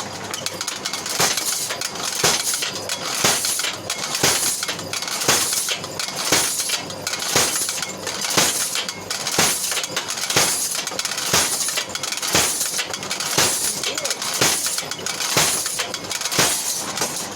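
Home-built power hammer striking metal at a slow, even pace of about one blow a second, each blow a sharp ringing clank, over a steady hum.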